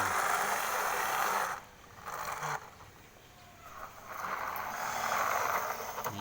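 Plastic toy vehicles being handled, a scraping, rattling noise in two stretches with a quieter gap between.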